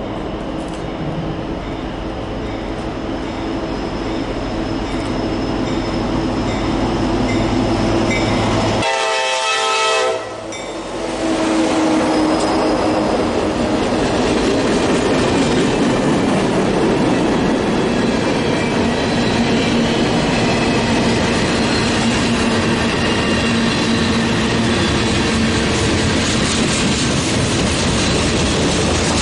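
CSX diesel freight train approaching and passing: the horn sounds briefly about nine seconds in as the locomotives go by, then the freight cars roll past with a steady clatter of wheels over the rail.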